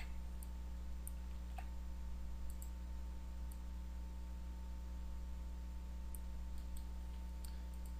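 A few faint, sharp computer mouse clicks, scattered irregularly, over a steady electrical hum.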